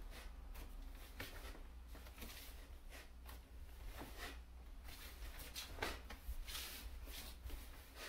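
Faint, scattered swishes and rustles of loose clothing and soft footfalls of bare feet on a wooden floor as a person moves through a karate kata, over a low steady room hum.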